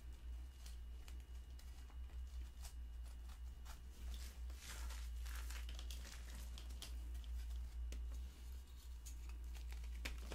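Purple gym chalk slab crumbled and squeezed by hand: dense, irregular soft crunching and crackling as chunks break apart and powder is pressed between the fingers.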